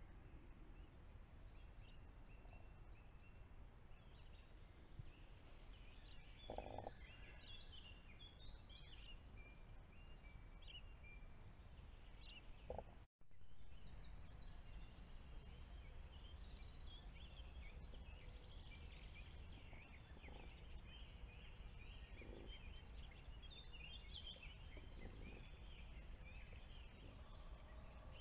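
Faint chorus of songbirds chirping over a low steady hiss, with a couple of short, lower calls in the first half. The sound drops out for a moment about thirteen seconds in, where one camera clip gives way to the next.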